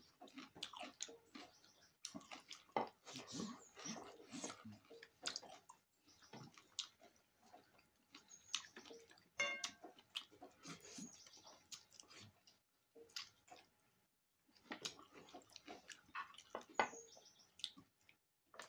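A person chewing food close to the microphone: uneven runs of small mouth clicks, pausing briefly about six and fourteen seconds in. A short pitched squeak comes about nine seconds in.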